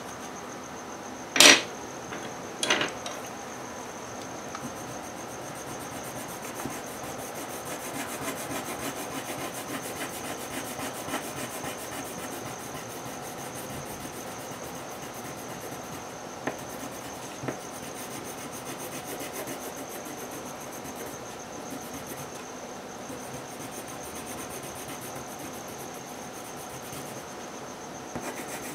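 Coloured pencil strokes rubbing on paper as a drawing is shaded in. Two sharp knocks come about a second and a half and about three seconds in.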